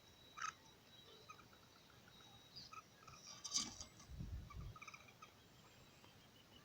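Faint, short bird chirps repeating, with a sharp click about three and a half seconds in and a few low thumps just after.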